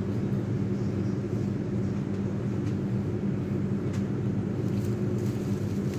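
Steady low mechanical hum with a constant drone, like a fan, compressor or motor running.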